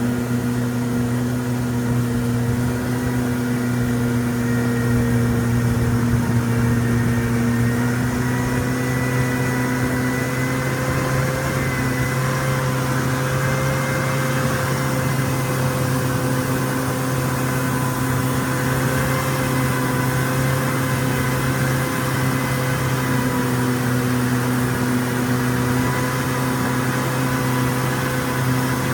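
Boat engine running steadily at a constant speed, its pitch drifting only slightly.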